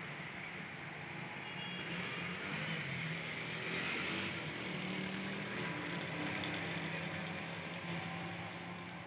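A motor vehicle's engine running, a low hum that grows a little louder about halfway through and then settles.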